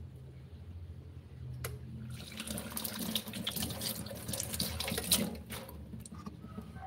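Water running from a tap into a sink as hands are rinsed. It starts about two seconds in and is shut off a little over three seconds later.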